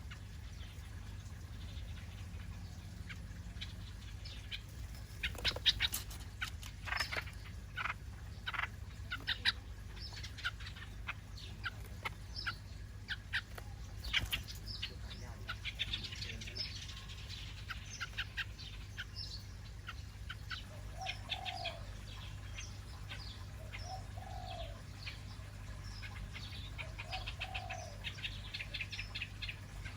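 Small birds chirping: many short, high chirps in quick runs, with a few lower calls in the second half. A steady low hum sits underneath.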